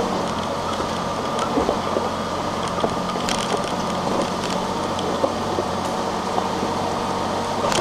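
Four-wheel drive's engine running steadily at low speed over a rough dirt track, heard from inside the cabin, with occasional short knocks and rattles.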